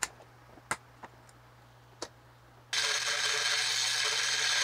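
A few sharp clicks of side cutters biting at the aluminium airsoft gearbox shell, then, about two and a half seconds in, a pen-style rotary tool starts up and runs steadily, grinding away a mounting post inside the gearbox shell.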